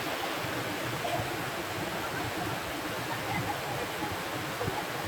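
Waterfall water rushing in a steady even roar.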